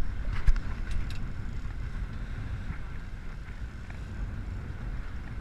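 Steady low rumble of wind and water aboard a fishing boat, with a few sharp clicks in the first second or so.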